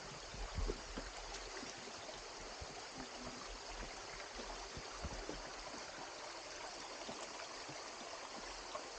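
Steady rush of a stream running over rocks, with a few short knocks of footsteps on stones, the loudest about half a second in.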